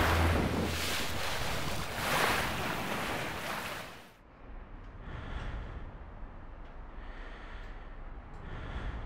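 Sea waves rushing and surging, a loud rushing noise that dies away about four seconds in. A fainter hiss follows, with soft swells about every second and a half.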